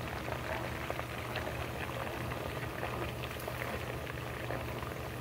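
Chicken pieces deep-frying in a pot of hot oil: a steady sizzle with dense, fine crackling.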